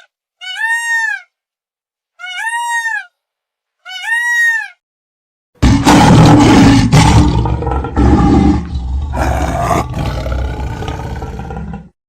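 A cat meows three times, short rising-and-falling calls about a second and a half apart. About halfway through, a big cat lets out a loud roar that lasts about six seconds and stops just before the end.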